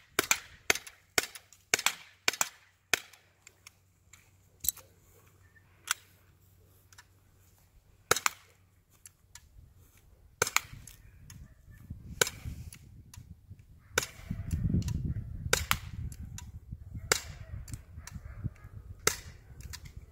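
Walther PPQ M2 .43-calibre CO2 paintball pistol firing rapidly. There are sharp cracks in a quick string of about ten shots in the first three seconds, a few spaced single shots in the middle, then another string of shots from about halfway. A low rumble rises in the second half.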